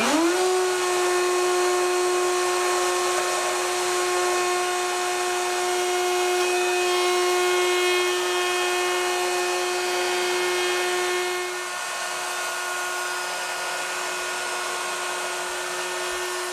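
Table-mounted router with a roundover bit spinning up and running with a steady high whine while a wooden push stick's edges are routed by hand; the pitch climbs quickly at the start and then holds. It drops a little in loudness about twelve seconds in.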